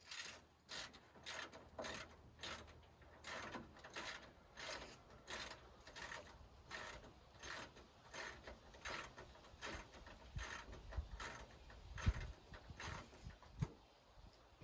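Even, quiet mechanical clicking, about two clicks a second, with a few low thumps in the last few seconds.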